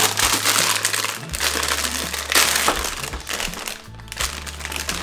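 A thin clear plastic bag crinkling and rustling as it is opened and reached into. The crinkling is loudest right at the start and again about two and a half seconds in.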